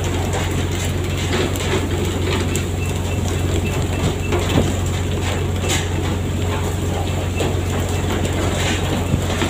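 Fishing boat's engine running with a steady low drone, with irregular knocks and clatter throughout.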